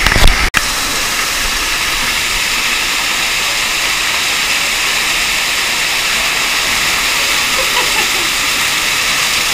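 Waterfall inside a cave: a steady rush of falling water pouring onto a person standing beneath it. One brief loud thump right at the start.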